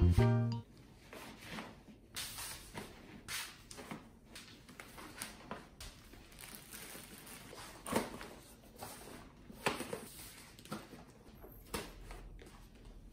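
Clothes and small pouches being packed into a hard-shell suitcase: quiet rustling of fabric with soft, irregular knocks as items are pressed into place.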